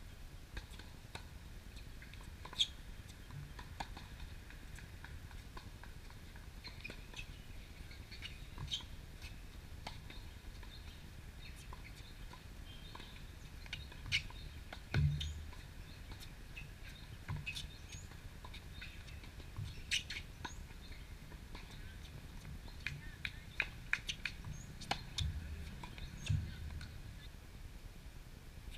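Scattered sharp knocks of a tennis ball being struck by rackets and bouncing on a hard court, irregularly spaced and coming in quicker clusters midway and near the end, over a low steady rumble.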